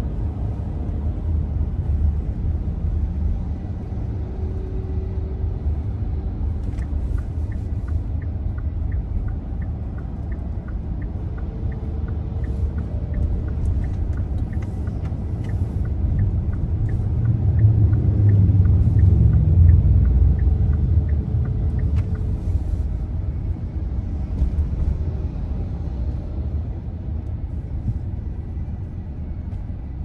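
Road traffic: a steady low rumble that swells as a vehicle passes about two thirds of the way through. A faint, fast, regular ticking runs through the middle stretch.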